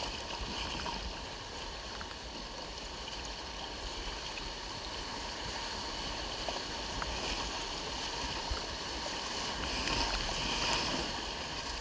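Steady rushing and splashing of river water around a raft, swelling briefly near the end, with a few faint knocks.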